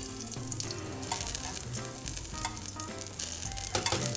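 Oil sizzling in a frying pan around an unpeeled garlic clove and a rosemary sprig, a steady light crackle: the pan is heating to take on the aroma of the rosemary and garlic.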